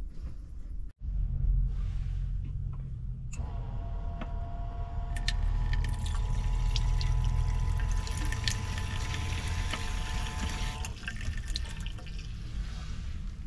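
Tap water running from a camper van's hot-water faucet into a small ceramic wash basin while a hand is rinsed under it. The flow starts about three seconds in and stops near the end, with a steady whine along with it.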